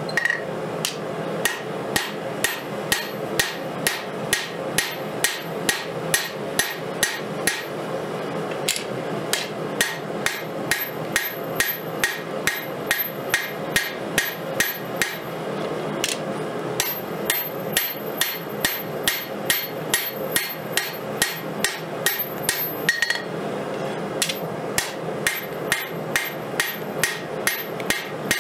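Hand hammer forging a red-hot steel khopesh blade on an anvil: steady blows about two to three a second, each with a high ring from the anvil. The blows come in runs broken by short pauses about eight and sixteen seconds in, over a steady background noise.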